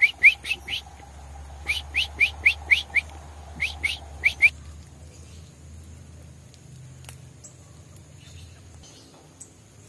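A young songbird chirping: quick, sharp, downward-sliding chirps in three rapid bursts, stopping about four and a half seconds in.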